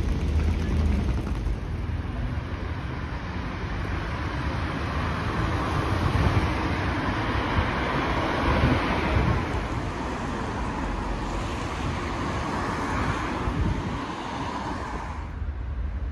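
Vehicle noise: a steady low rumble with a hiss that swells through the middle and cuts off suddenly near the end.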